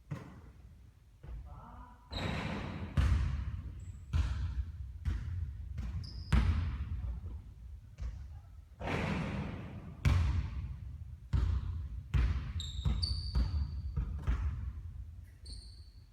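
A basketball bouncing hard on a court floor, a dozen or so sharp bounces roughly a second apart, each ringing on in a large hall, with a few short high squeaks between them.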